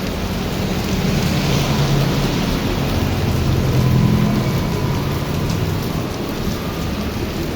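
Heavy rain falling steadily. A low rumble of thunder swells about a second in and fades after about four seconds.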